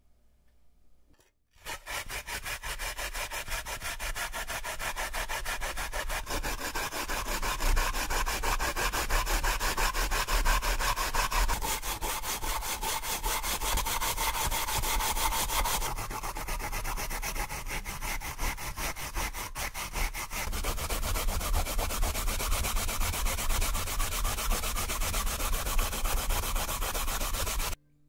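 Daikon radish being grated on a tray-style grater with rings of raised teeth: fast, even back-and-forth scraping strokes, starting about two seconds in and stopping abruptly near the end.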